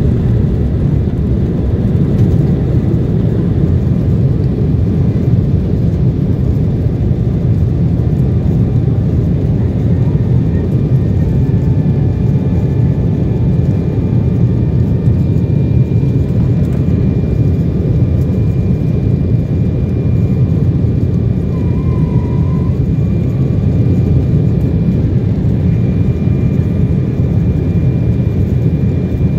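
Jet airliner cabin noise during the climb after takeoff: a steady, loud rumble of engines and rushing air heard from inside the cabin, with a faint thin high tone above it from about twelve seconds in.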